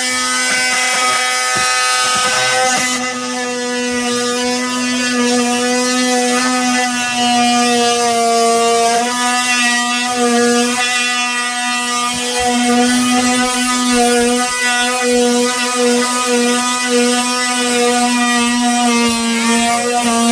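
Oscillating multi-tool running continuously with a loud, steady buzzing hum, its pitch dipping slightly now and then as the blade cuts.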